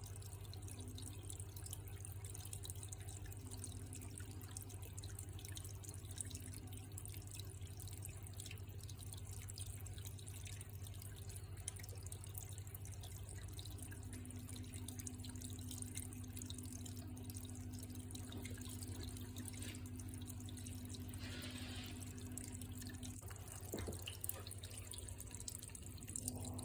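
Water dripping and trickling steadily over a low, steady hum, with a brief hiss and a sharp knock near the end.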